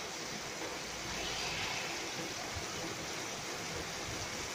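Steady rain during a night thunderstorm, a continuous hiss that swells a little about a second in.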